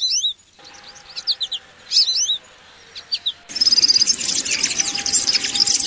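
Small birds chirping: a few scattered short, falling chirps, then about three and a half seconds in an abrupt change to a louder, dense chorus of many birds calling at once.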